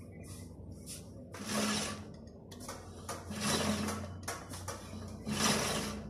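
Motorcycle rear wheel spun by hand and stopped with the rear disc brake, a whirring swish that swells and fades about three times, as the newly fitted rear brake pads are tested; the brake works properly.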